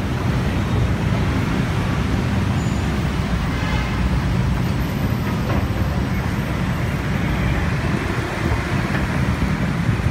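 Steady city road traffic noise: a continuous low rumble with no single event standing out.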